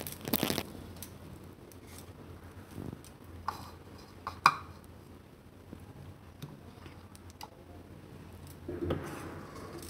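Steel ladle clinking and scraping in a pan of thick spinach gravy, with a few sharp clinks early and around the middle, then a softer scrape and wet plop near the end as the gravy is spooned into a ceramic bowl.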